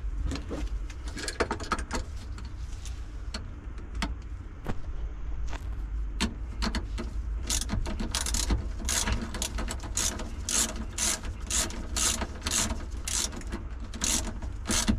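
Hand socket ratchet clicking as a 10 mm battery terminal nut is tightened. Sparse clicks at first, then a steady run of about three clicks a second from about halfway through.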